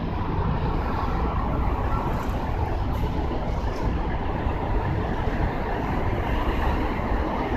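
Steady low rumble of distant traffic, with no distinct events.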